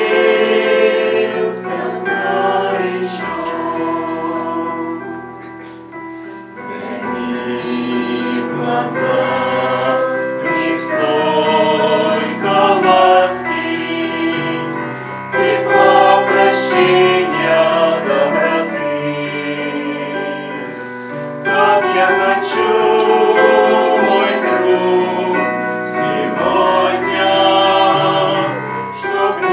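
A choir singing a Christian hymn, many voices in harmony, dipping quieter about six seconds in before swelling again.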